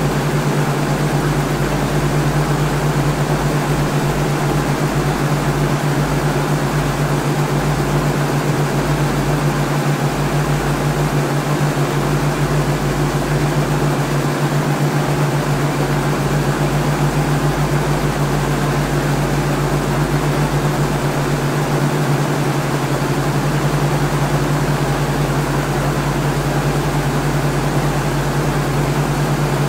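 Steady mechanical hum: a constant low tone with fainter higher tones over a hiss, unchanging in pitch or level.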